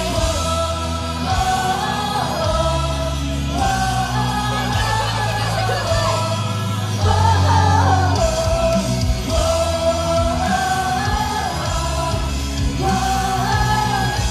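Female idol singers singing into handheld microphones over loud band-style backing music with a steady, heavy bass line.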